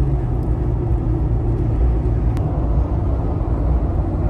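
Steady low rumble of a Jeep cruising at highway speed, heard from inside the cab: road and engine noise.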